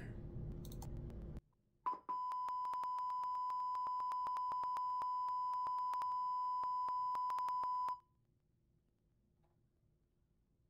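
Two 6.5-inch car-door woofers, wired in parallel with a 2-ohm series resistor to make a 4-ohm load, playing a 1,000 Hz test tone at full head-unit volume. It is a steady beep that starts about two seconds in and stops about six seconds later, with frequent clicks running through it.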